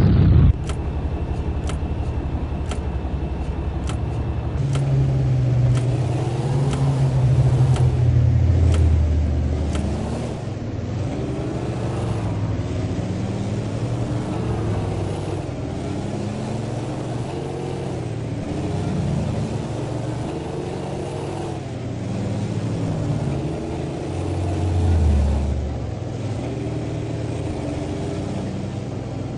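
Cummins N14 inline-six diesel truck engine rumbling through a 6-inch exhaust as the truck pulls away, its note rising and falling again and again as it works through the gears. It is loudest a few seconds in and again near the end. A regular ticking comes with it in the first few seconds.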